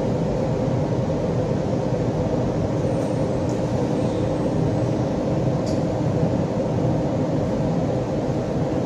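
Interior noise of an Alstom Metropolis C751C metro train drawing up to the platform with its doors closed: a steady hum and rumble with a couple of faint ticks.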